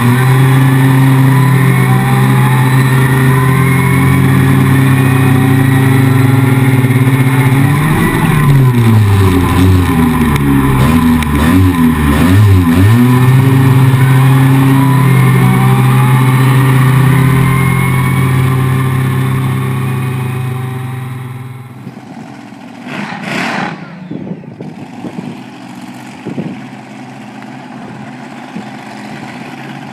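A quad (ATV) engine running steadily under load on a dirt road, its pitch rising and falling several times about a third of the way in. About two-thirds of the way through the sound cuts to a much quieter outdoor background with one brief louder swell.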